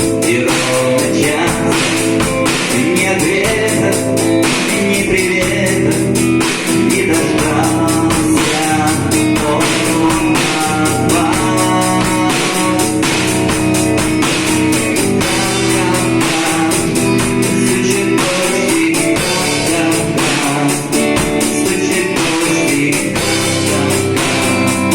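Music: a song's guitar accompaniment, with guitar over a steady beat.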